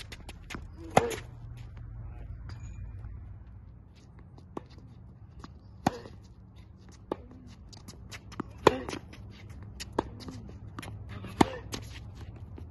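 Tennis rally: the racket strikes the ball with a sharp pop about every three seconds, about a second in, near six seconds, near nine and near eleven and a half. Fainter ball hits and bounces from the far side of the hard court come between.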